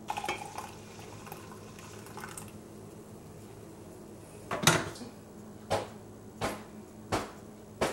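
A metal spoon clinking against a ceramic coffee mug: a few light ringing clinks at the start, then, from about halfway in, five sharp knocks a little under a second apart, over a faint steady hum.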